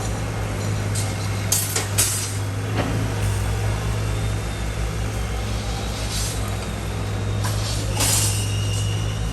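Excavator's diesel engine running steadily, with a few short hisses and clanks over it.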